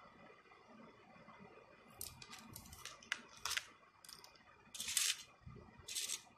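Pipe beads clicking and rattling as they are picked up and threaded, in several short bursts from about two seconds in, the loudest about five seconds in.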